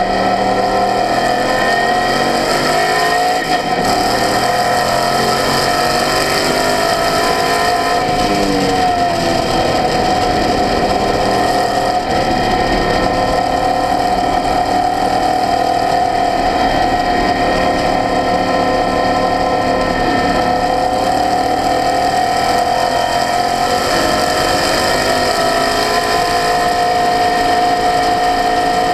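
Small open-wheel race car's engine running hard at speed, heard from on board; its pitch drops and climbs back several times as the car lifts off and accelerates again through the corners.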